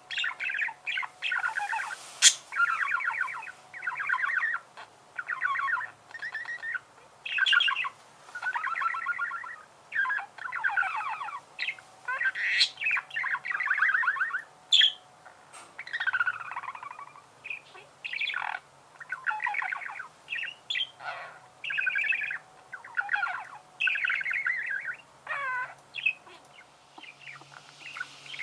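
Budgerigars warbling and chirping in a near-continuous stream of short, fast-trilled phrases with brief gaps, now and then a sharper squawk.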